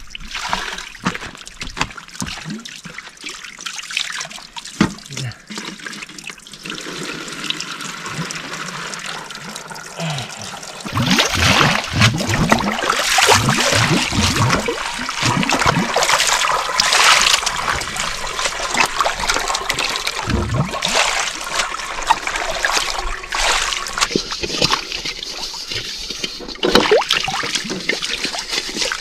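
Water trickling and splashing onto a wet concrete slab while hands slosh and rinse in aluminium basins and a wok, with many small splashes. It gets louder and busier from about eleven seconds in.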